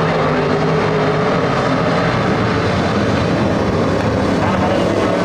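Engines of a pack of dirt-track street stock race cars running at speed together: a loud, steady, dense drone of several engines at once, their pitches overlapping and shifting a little.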